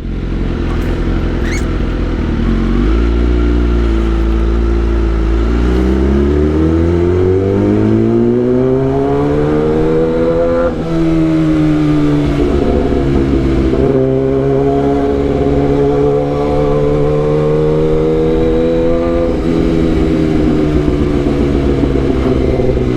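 Kawasaki ZX-10R's inline-four engine under way, rising steadily in pitch as it accelerates, dropping suddenly at a gear change about eleven seconds in, then running fairly steady with another small drop later on.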